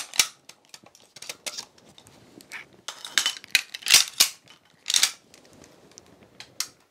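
Metal clicks, scrapes and clatter of a Stgw 57 rifle's action being worked by hand to get at the bolt carrier, with a sharp click at the very start and clusters of clicks about three, four and five seconds in.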